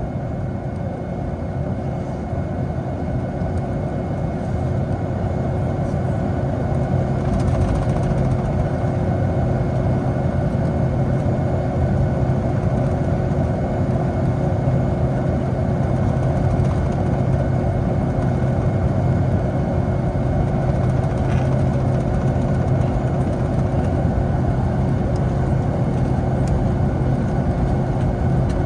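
Boeing 757 jet engines running, heard inside the passenger cabin as a steady rush with a low hum and a constant tone above it, growing louder over the first several seconds and then holding steady.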